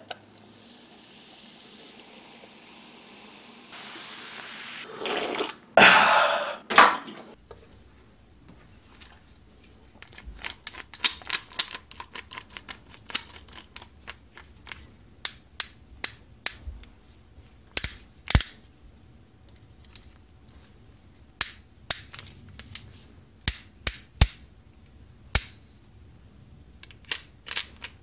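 Many sharp, irregular metal clicks and clanks as an old hand drill brace is handled and its chuck is twisted. Before that there is a faint hiss, then a brief louder rush of noise with a few knocks about five to seven seconds in, while a soda can is handled over a foam cup.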